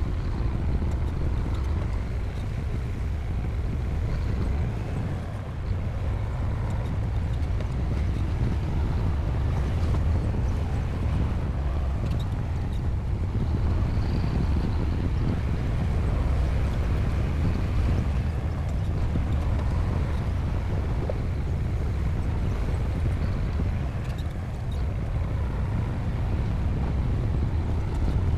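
Bulldozer diesel engine running steadily at work, a continuous low rumble that rises and falls slightly in level.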